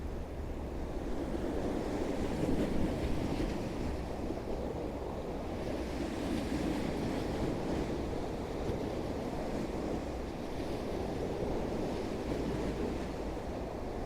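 Irish Sea waves washing in against the seafront in a rough tide, a steady rushing wash that swells slightly a couple of times. Wind buffets the microphone underneath.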